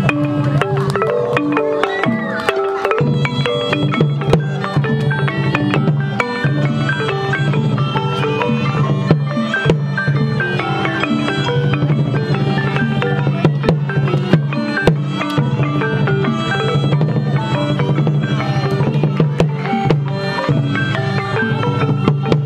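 Cambodian pinpeat ensemble playing traditional Sbek Thom shadow-puppet music: a busy, fast run of struck melody notes over a steady drum bed, with frequent sharp percussion strokes.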